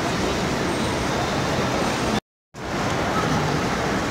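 Steady, loud background noise of a busy shopping mall concourse, a featureless hum and hiss of the large hall. It cuts out completely for about a third of a second a little over two seconds in, then returns.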